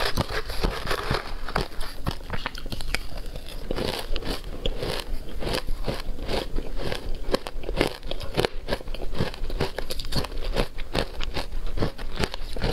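Close-miked crunching and chewing of shaved ice dusted with matcha and milk powder: rapid, sharp crunches, several a second, as the ice is bitten and ground between the teeth.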